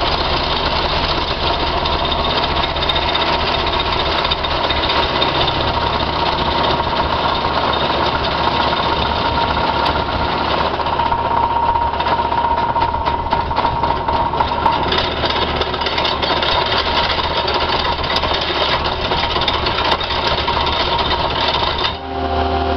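Hydraulic vibratory plate compactor attachment running on gravel, a loud steady rattling hammer of the steel plate with the carrier machine's engine running underneath. Near the end the rattle drops away abruptly, leaving a smoother engine hum.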